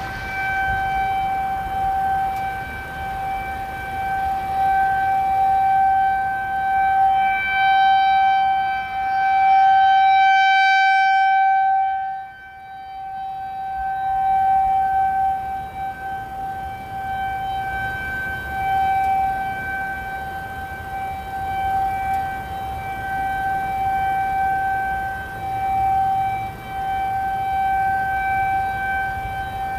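Federal Signal 2001-SRN civil defense siren sounding a steady alert tone, heard from a distance. The pitch holds steady while the sound swells and fades as the single horn rotates, loudest about ten seconds in when the horn faces the listener.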